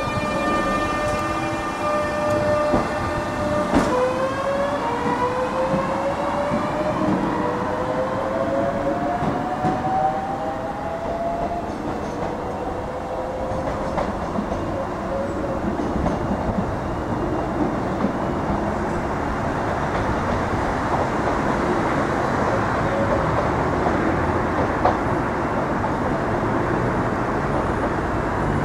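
Class 466 Networker electric multiple unit: a steady whine of several even tones, then a whine that rises in steps as the unit pulls away and picks up speed, giving way to the steady wheel-and-rail noise of the train running.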